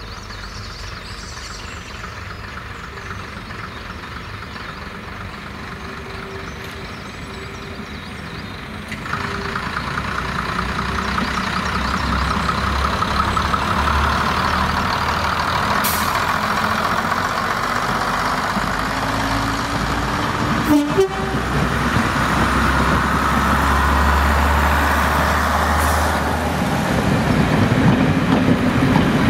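First-generation British Rail diesel multiple unit running past at low speed: its underfloor diesel engines are working, and its wheels run on the track. The sound grows louder as the coaches come alongside, with one sharp knock about two-thirds through.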